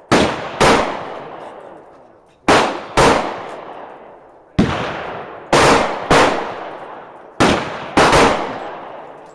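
Pistol shots, about nine in a string, several in quick pairs about half a second apart. Each shot is followed by a long echo that fades over a second or more.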